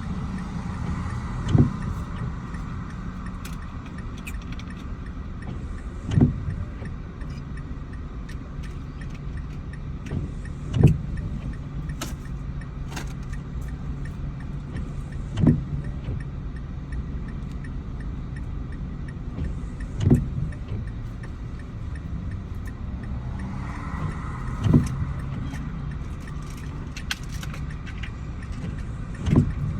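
Inside a car in the rain: steady engine and road hum, with windscreen wipers on an intermittent setting giving a short thump about every four and a half seconds, seven times, and scattered light ticks of rain on the glass.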